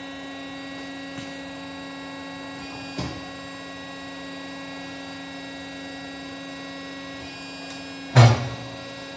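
Steady electric hum of a hydraulic pull-test dyno running while it loads a rigged spreader bar. There is a faint knock about 3 s in and a louder, sharp knock about 8 s in as the rigging settles under the rising tension.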